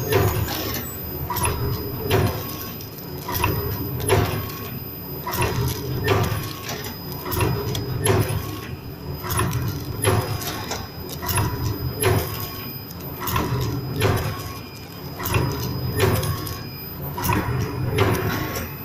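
Powder stick-bag packing machine running, a sharp metallic clack about once a second with lighter clicks between, over a steady motor hum.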